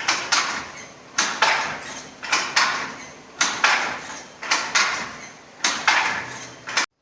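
Handloom weaving a Kerala saree: the wooden beater and shuttle clack in pairs of strokes about once a second. The sound cuts off suddenly near the end.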